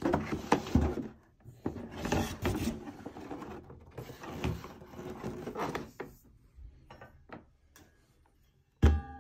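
Cardboard packaging being handled: rustling, scraping and knocking of a cardboard box, paper sheet and molded pulp tray for about six seconds, then a few light taps. Just before the end a plucked note of music begins.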